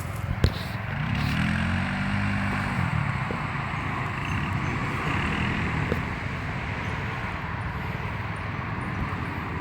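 Small engine of a kids' side-by-side (a Polaris RZR 170 clone) running, revving up and back down about one to three seconds in, with a few sharp clicks heard now and then. The clicking sounds like a chain skipping, which the owner takes for a loose chain tensioner.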